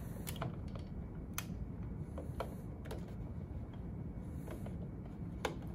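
A few scattered light clicks of a Phillips screwdriver working the screws out of the battery bracket inside a UPS, over low steady room noise.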